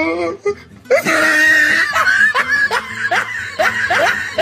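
A person laughing, breaking out about a second in with a high squeal and then running on in rapid giggles.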